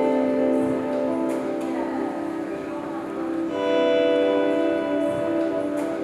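Background music of held, sustained chords with a bell-like ring, changing chord about three and a half seconds in.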